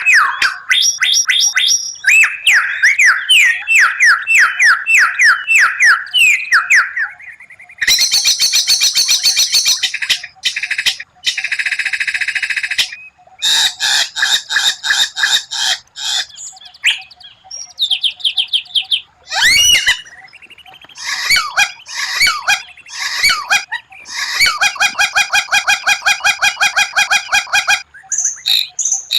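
White-rumped shama (murai batu) singing a fast, varied song: runs of rapidly repeated notes and trills, buzzy rattling phrases, and sweeping whistles, broken only by short pauses.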